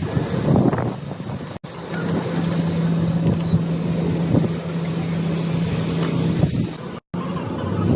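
Car engine running with a steady low hum; the sound cuts out abruptly for an instant twice.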